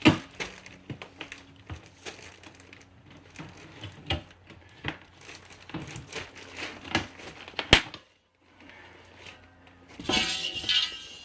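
Aluminum window frame's center bar being bent and broken off: scattered clicks and knocks of the metal flexing, a sharp crack about two-thirds of the way through, and a harsh scrape near the end.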